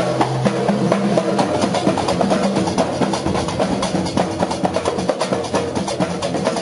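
Large hand-held frame drums beaten in a fast, dense, driving rhythm in the Moroccan dakka marrakchia style, over sustained pitched tones.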